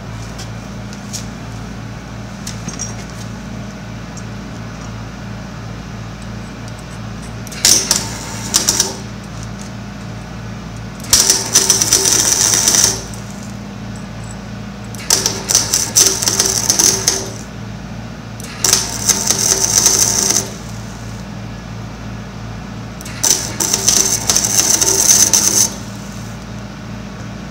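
MIG welder tack-welding a steel beam onto a go-kart frame: five bursts of arc crackle and sputter, each one to two seconds long, over a steady low hum.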